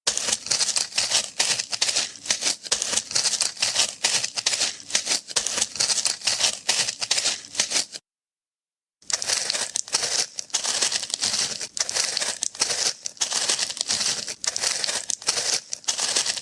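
Dense, irregular crinkling crackle like something being crumpled. It cuts off abruptly about eight seconds in and starts again a second later.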